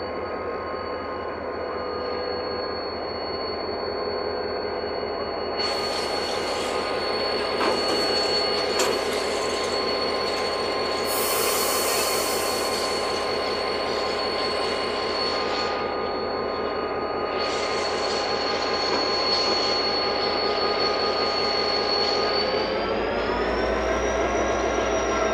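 Diesel locomotive engine running steadily, with air hissing from about six seconds in and a stronger burst of hiss around twelve seconds; near the end the engine's pitch rises.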